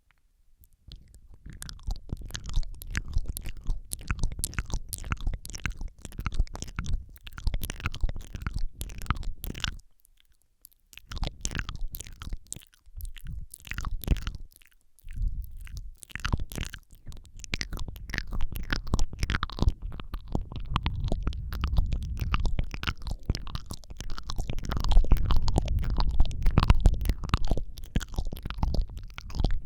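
Close-miked ASMR mouth sounds: dense wet tongue clicks, smacks and licking sounds right against the microphone, over a low rumble from breath and contact with the mic. They break off briefly about ten seconds in and again about fifteen seconds in.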